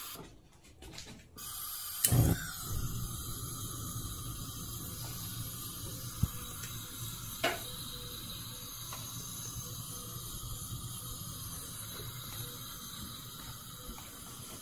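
Gas hob burner being lit on a Samus SM550 cooker: a few igniter clicks, a sharp pop about two seconds in as the gas catches, then the burner flame burning with a steady low rumble and hiss. Two more single clicks come later.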